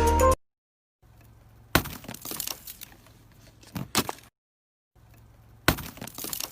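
Background music cuts off abruptly. Then come a few sharp cracks and clicks over a faint low hum, in two similar groups with a short silence between them.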